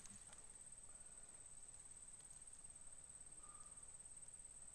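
Faint, steady high-pitched insect trill.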